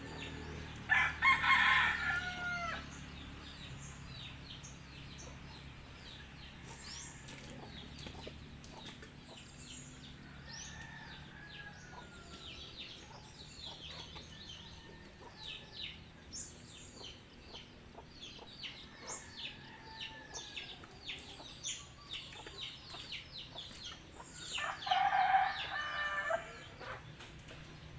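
A rooster crows twice, about a second in and again near the end, with many short chirps and clucks from fowl in between.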